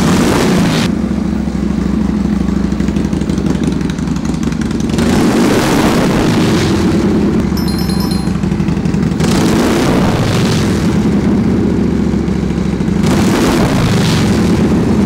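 A 1980 Harley-Davidson FXB Sturgis Shovelhead V-twin is running on its freshly rejetted S&S Super E carburetor. The engine note is steady, with louder, brighter stretches for a few seconds around the middle and again near the end.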